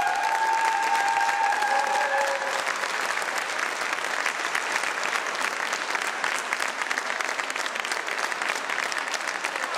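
Audience applauding: many hands clapping steadily. The last held note of the tango music fades out in the first two or three seconds.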